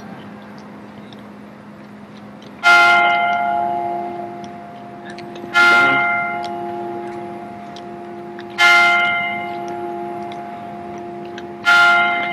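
A large bell struck four times, about three seconds apart, each stroke ringing out and slowly fading.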